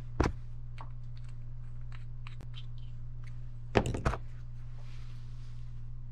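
Small hard objects knocked and set down on a work surface: one knock just after the start and a quick cluster of three or four knocks about four seconds in, with light ticks between, over a steady low hum.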